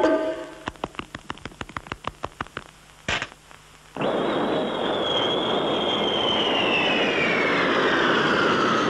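A run of light clicks and one sharp click, then a cartoon falling sound effect from about four seconds in: a long whistle gliding steadily downward over a loud rushing whoosh, cutting off suddenly at the end.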